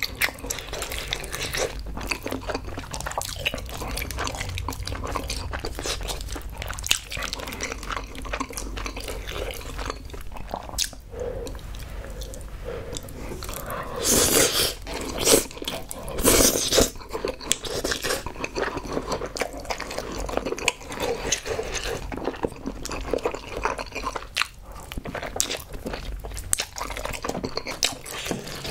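Close-miked eating sounds: wet chewing and biting of spicy tteokbokki and glass noodles, with a few loud slurps of saucy noodles about halfway through.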